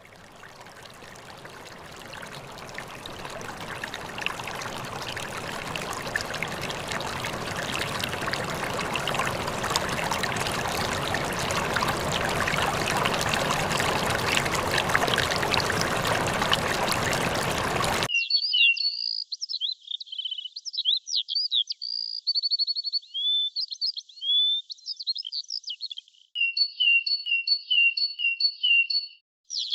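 Flowing, splashing water that fades in over the first few seconds, then cuts off suddenly about two-thirds through and gives way to bird song: quick high chirps and whistles, with a run of repeated two-note calls near the end.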